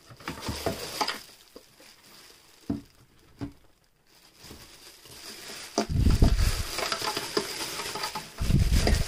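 Thin plastic wrapping bag crinkling and rustling as it is handled. It comes in a few scattered crackles at first, then turns steadier and louder from about halfway. Two dull bumps come near the end.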